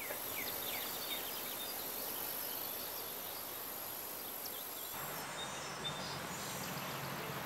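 Outdoor ambience: birds chirping over a steady high-pitched insect buzz. About five seconds in the buzz stops and a low steady hum of distant traffic takes over.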